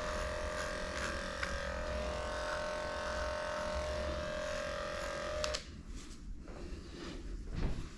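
Electric dog grooming clippers running with a steady buzz, switched off about five and a half seconds in; a few soft handling knocks follow, one louder near the end.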